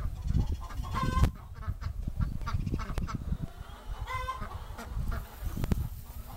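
Chickens and ducks calling: clucking and quacking, with two louder calls about a second in and again about four seconds in.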